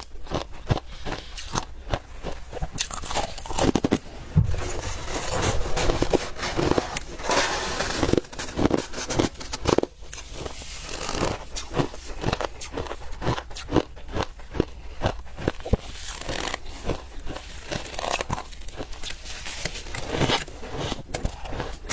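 Close-miked mouth crunching and chewing of frozen humidifier frost ice. It is a rapid, irregular run of crisp crunches and crackles, with thicker grinding stretches a few seconds in and again near the middle.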